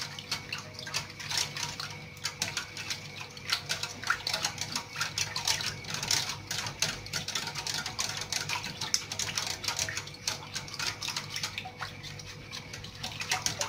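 A wire whisk beating a thin, uncooked milk-and-cornstarch mixture in a stainless steel pot: fast, continuous clicking of the wires against the pot with a liquid swishing, busiest in the middle.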